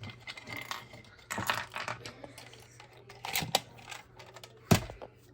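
Small hard plastic toy figures being handled: scattered clicks and clacks in two short clusters, then one sharp knock near the end as a piece is set down or taps a surface.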